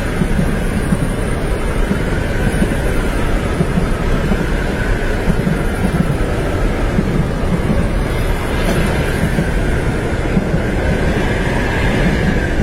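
Train running along the tracks, heard from inside a passenger compartment: a steady dense rumble with a pulsing low throb and a faint whine that slowly rises and falls.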